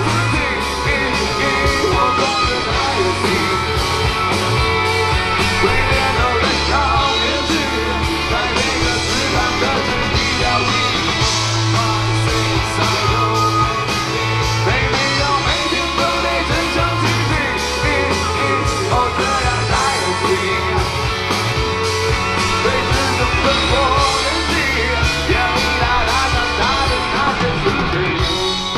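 Rock band playing a song live, with drums, bass, guitars and a lead singer, loud and steady throughout; the music drops away right at the end.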